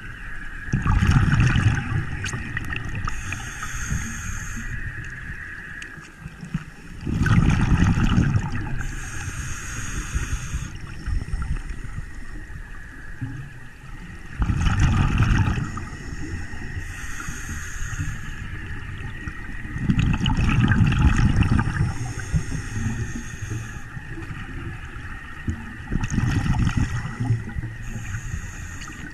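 Scuba diver breathing through a regulator underwater: about five cycles, each a loud burst of exhaled bubbles rumbling past the camera, then a softer hiss of inhalation, repeating roughly every six seconds.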